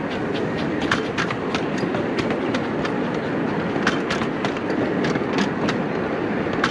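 Open passenger cars of a 15-inch gauge miniature railway rolling past on the track: a steady rumble with sharp clickety-clack wheel clicks, several a second.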